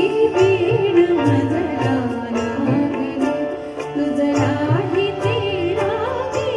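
A woman singing a Marathi song live, her melody wavering through ornaments, accompanied by harmonium and regular hand-drum strokes.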